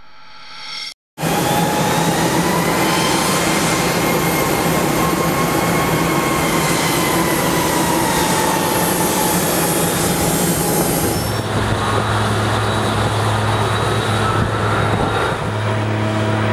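Loud, steady running noise of heavy machinery, with faint whining tones that slowly drift in pitch; about ten seconds in it shifts to a deeper steady hum.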